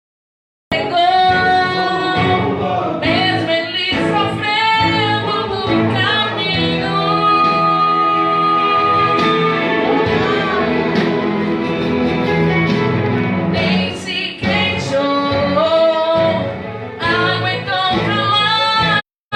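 A song: a voice singing with instrumental accompaniment, starting just under a second in.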